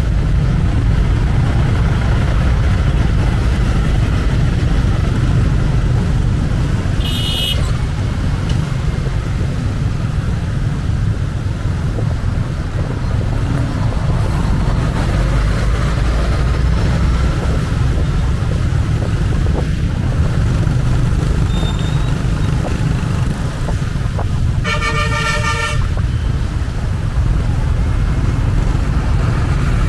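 Road traffic with a steady low rumble, broken by vehicle horns: a short high toot about seven seconds in and a longer, louder horn blast around twenty-five seconds in.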